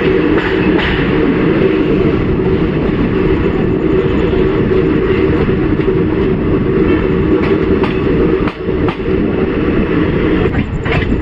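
Indian Railways passenger express train running: a steady, loud rumble with a few sharp clacks of the wheels over rail joints.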